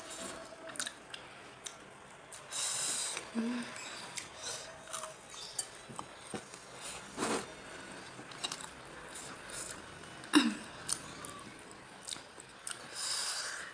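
Close-mic mouth sounds of eating by hand: wet chewing and lip smacks with many small crisp clicks as fried tempeh and spicy jengkol with rice are bitten and chewed. Twice there is a breathy sniff, about three seconds in and near the end, from a nose running with the chilli heat.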